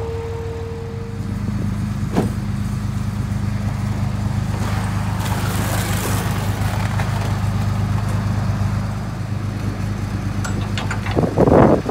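A vehicle engine idling steadily. Near the end come sharp clicks and rattles as a ratchet tie-down strap is worked over the trailer deck.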